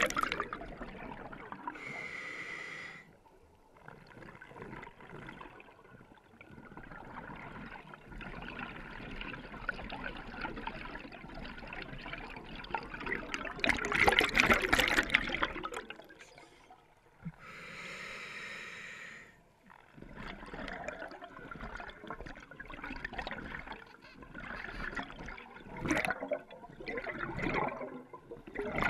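Scuba diver breathing through a regulator underwater: a hissing inhale with a steady whistle in it about two seconds in and again near eighteen seconds, and exhaled bubbles rushing and gurgling out of the regulator between breaths, loudest around fourteen seconds.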